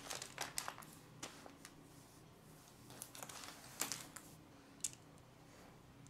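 Small plastic Lego pieces clicking against each other: a quick flurry of clicks in the first second, then scattered soft single clicks.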